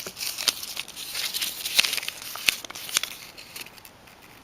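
Plastic figure packaging crinkling and rustling as it is opened by hand, with several sharp clicks, dying away near the end.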